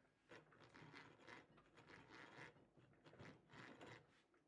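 Faint crunching scrape of a hand drill's twist bit boring into a block of wood, coming in uneven bursts about two or three a second.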